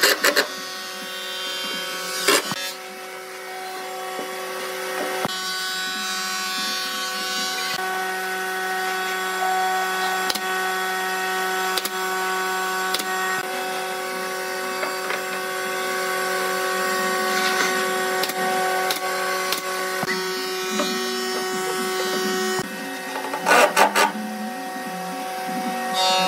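Cordless Makita impact driver driving screws into pine in short bursts: one at the very start, another about two seconds in, and a louder run of bursts near the end. In between, scattered knocks of wood being handled over a steady background of sustained tones.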